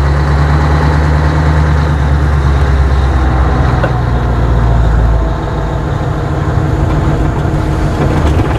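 1996 Scania 143M's 450 hp V8 diesel engine running as the truck drives slowly, a deep steady engine note that eases off about five seconds in.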